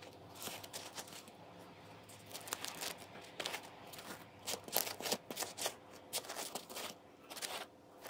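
Crisp crust of freshly baked Brötchen crackling as a hand squeezes and handles the rolls, in quick dry crackles that come in irregular clusters and are busiest about halfway through.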